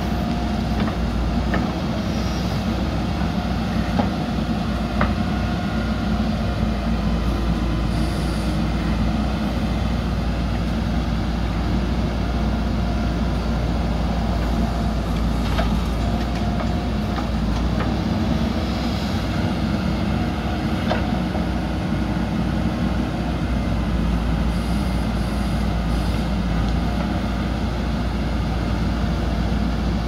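JCB 3DX backhoe loader's diesel engine running steadily under load while the backhoe digs soil and dumps it into a truck, with a few sharp knocks from the bucket and soil.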